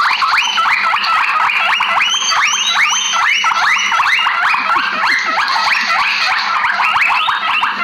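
Guinea pigs wheeking: rapid, repeated rising whistles, about three a second, overlapping as if from several animals at once.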